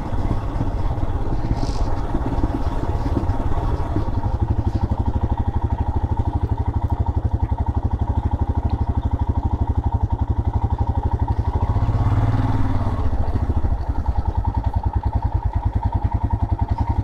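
Motorcycle engine running in first gear down a steep descent, holding the bike back with engine braking; an even, pulsing beat throughout, swelling slightly past the middle.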